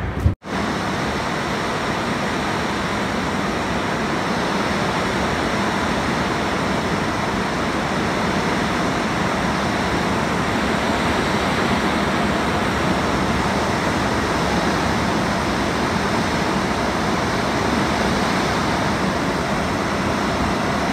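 Heavy tropical rainstorm: a steady roar of downpour and wind. It sets in just after a brief break near the start.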